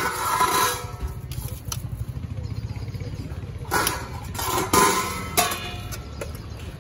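Roadside food stall ambience: a steady low traffic rumble, with a few short clinks and scrapes of steel serving spoons and pot lids near the start and again a little past the middle.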